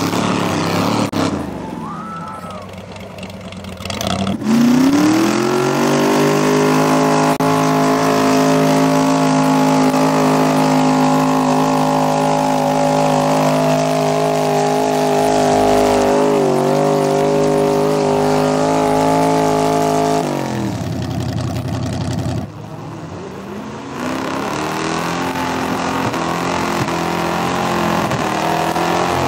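A mud-bog pickup truck's engine revs up about four seconds in and holds at high, steady revs for some fifteen seconds as it pulls through the mud pit, with a brief wobble partway through. It then backs off, and it picks up again near the end.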